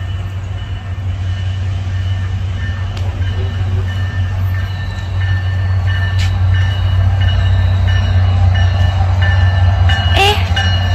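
A train approaching the station, its low steady rumble growing gradually louder.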